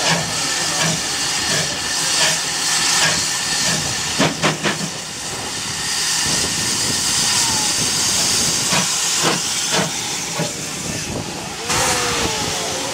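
Steam locomotives venting steam: a loud steady hiss, with a quick run of sharp puffs about four seconds in.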